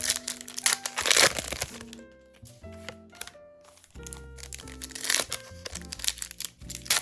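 Background music with steady held notes, over the crinkling and tearing of foil trading-card booster packs being opened by hand, in two bursts about half a second and four and a half seconds in.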